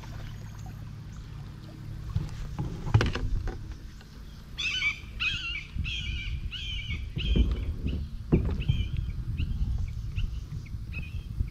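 A bird calling a series of about a dozen repeated harsh notes, about one and a half a second, fading toward the end. A few dull knocks and bumps sound under it, the loudest about three seconds in.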